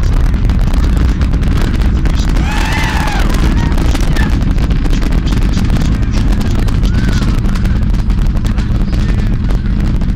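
Space Shuttle Endeavour's rocket exhaust during ascent: a heavy, steady low rumble laced with continuous rapid crackling.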